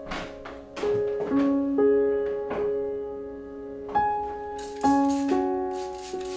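Background piano music, slow and gentle, with a new note or chord about every second that rings on under the next.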